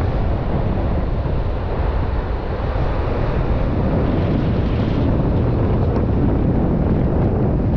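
Wind buffeting the microphone: a steady, loud low rumble with no pauses.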